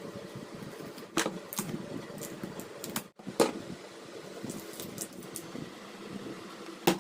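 Clicks and knocks of hand work on a fan's parts, with three louder knocks spread over several seconds, over a steady low hum.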